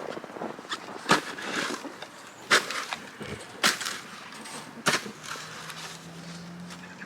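Four sharp crunches in snow, about a second apart.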